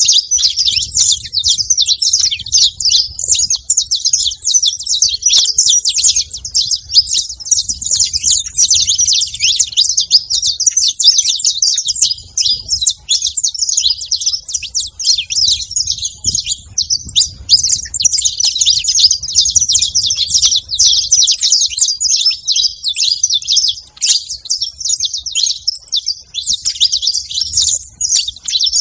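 A flock of saffron finches chirping all together, many short, high calls overlapping in a continuous chatter.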